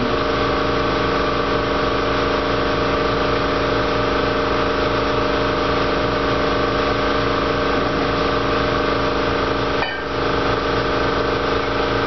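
Steady mechanical drone of a running machine, holding several even tones, with a brief dip about ten seconds in.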